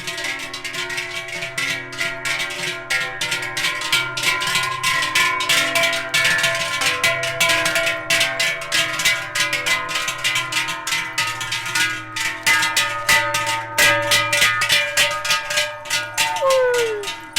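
Many large cowbells clanging at once as the cattle walk along, a dense, uneven clatter of strikes over layered ringing tones. A brief falling tone sounds near the end.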